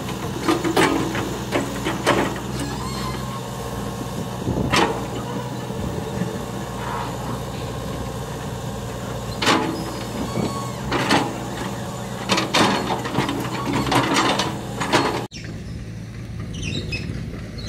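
Hitachi hydraulic excavator's diesel engine running steadily, with repeated sharp knocks and clanks as the machine works the soil. About 15 seconds in the sound cuts off abruptly to a quieter engine hum with faint bird chirps.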